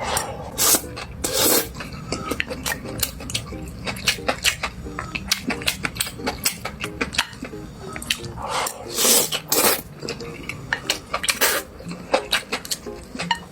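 Eating utensils clicking and scraping against a bowl as rice is mixed and eaten, in many short irregular clinks with a few louder scrapes. Faint background music runs underneath.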